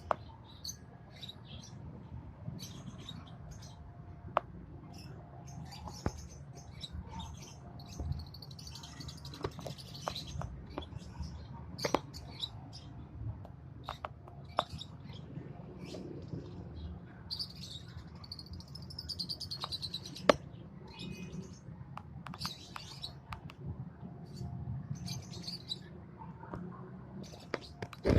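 Lovebirds chirping: many short, high chirps scattered throughout, with a few sharp clicks among them over a low steady hum.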